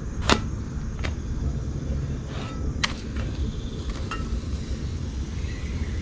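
Naan being flipped and handled in a cast-iron skillet on a portable gas stove: a sharp click about a third of a second in, then a few lighter taps, over a steady low rumble.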